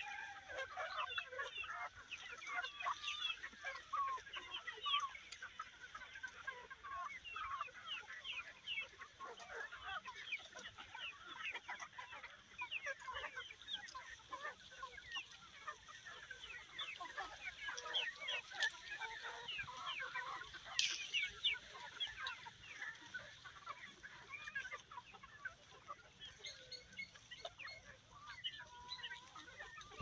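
A flock of chickens clucking, with many short calls overlapping throughout.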